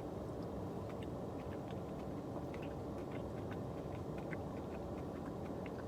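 Steady hum of a running car's air conditioning in the cabin, with faint, irregular small clicks over it from eating.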